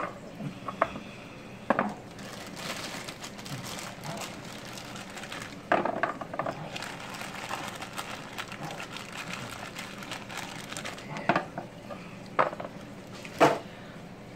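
Baby carrots being set down one by one on a metal sheet pan: scattered light knocks and taps on the pan, a second or several apart.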